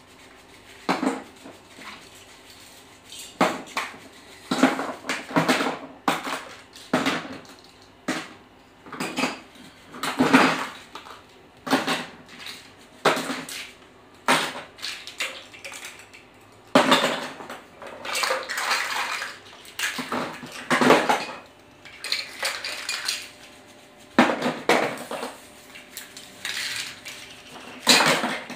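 Plastic toy pieces clattering as they are dropped into a plastic storage tub, an irregular run of short clatters every second or two with a few longer rattling handfuls.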